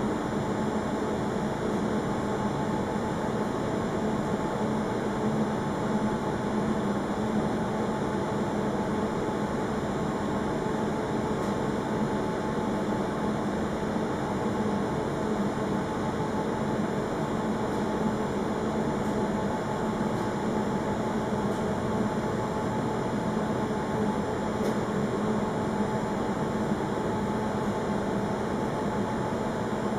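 Steady mechanical hum with a constant hiss, unchanging throughout, with no bird calls.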